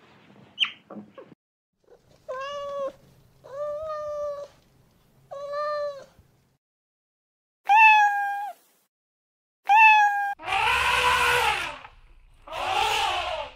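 A few short high squeaks from otters, then cats meowing: three even meows about a second apart, followed by two louder ones. Near the end an elephant gives two long, harsh trumpeting calls.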